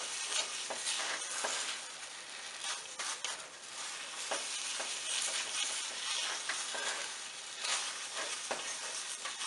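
Thick kalakand mixture of milk and ricotta sizzling in a hot nonstick pan while a silicone spatula stirs and scrapes through it, the steady hiss broken by soft scraping strokes and occasional light knocks. This is the final stage of cooking the mixture down until the milk has dried out.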